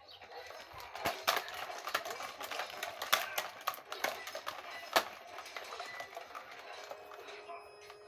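Close handling noise from a plastic-wrapped toy racing car being turned over in the hand: crinkling plastic with a run of sharp clicks and knocks, the loudest about a second in, three seconds in and five seconds in.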